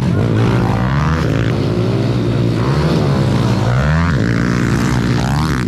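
Two pit bikes (small dirt bikes) riding by on a dirt track, their engines buzzing loudly and revving up and down over and over.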